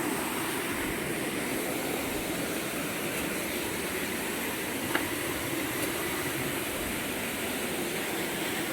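Waterfall and fast-flowing river water rushing, a steady even roar.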